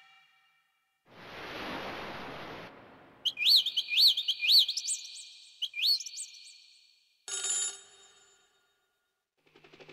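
Yamaha Motif XF7 synthesizer sound-effect presets played one after another. First a hiss-like noise burst of about a second and a half, then a run of quick rising chirps like a ringtone or bird trill, then a short buzzy blip that fades.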